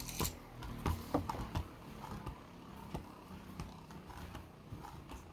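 Scattered light clicks and taps of Beyblade parts being handled, with about a dozen small knocks at irregular intervals.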